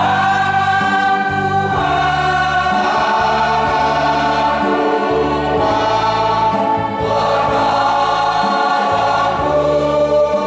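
Mixed church choir of men's and women's voices singing a hymn together in long held chords that change every second or two.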